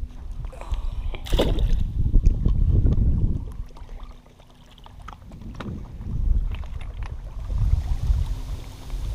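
Wind gusting on the camera microphone, a low rumble that rises and falls, with a short sharp knock or splash about a second and a half in.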